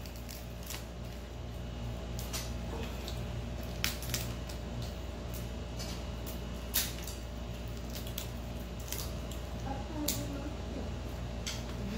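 Irregular sharp snaps, clicks and wet squishing of snow crab legs being cracked open and picked apart by hand, about a dozen scattered cracks with short gaps between them.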